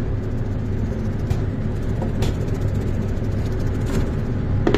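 Steady low hum and rumble of kitchen background noise, with a few faint light clicks scattered through it.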